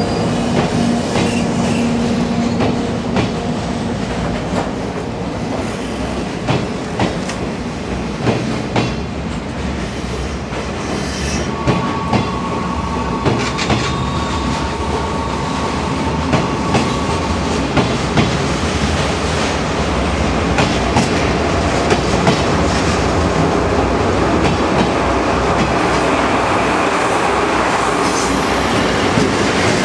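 Railway carriages of a locomotive-hauled train rolling slowly past, their wheels clicking over rail joints in an uneven rhythm over a steady rumble. A faint wheel squeal sounds in the middle.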